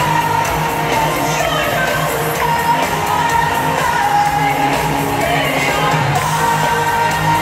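Live pop music through an arena's sound system, with held sung notes over the band and the crowd cheering and singing along, recorded from the audience. It is steady and loud throughout.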